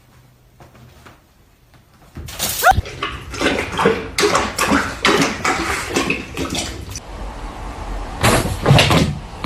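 Quiet for about two seconds, then a busy run of knocks, rattles and scrapes, with a short rising squeak just after they begin.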